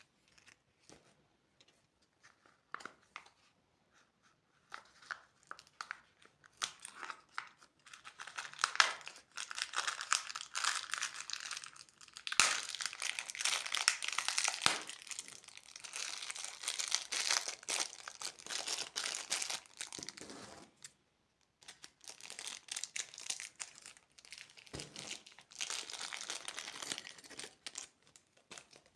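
Plastic candy wrapper being crinkled and torn open. A few light crackles come first, then two long spells of dense crinkling with a short pause between them.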